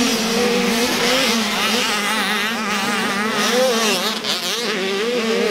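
KTM 85cc two-stroke dirt bike engine racing on a motocross track, its pitch rising and falling rapidly as the rider works the throttle.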